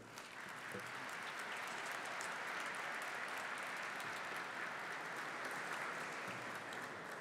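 Audience applauding, building up over the first second or two, holding steady, then dying away near the end.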